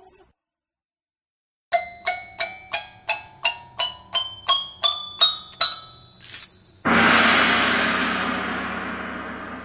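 Short musical sound-logo jingle. After a moment of silence come about a dozen quick bell-like strikes, roughly three a second. A brief high sparkle follows, then a loud crash that rings on and slowly fades.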